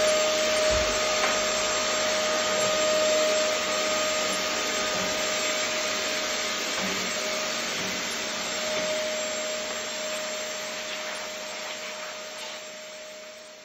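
Canister vacuum cleaner running at full speed: a steady high motor whine over rushing air, fading away near the end.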